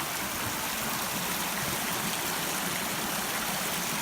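Small mountain stream rushing and splashing, a steady, even water noise.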